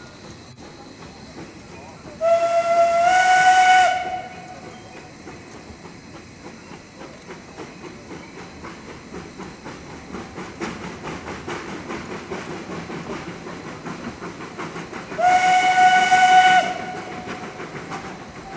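The Mh.1 narrow-gauge steam locomotive's whistle blown twice, each a long blast of about a second and a half; the first steps up slightly in pitch partway through. Both are sounded as the train approaches an ungated level crossing. Between the blasts the engine's rhythmic exhaust beats and the clatter of the carriages run on.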